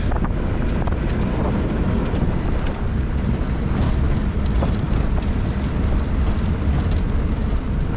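A 4x4 vehicle driving, its engine and tyres making a steady low rumble, with wind buffeting the microphone and a few faint knocks.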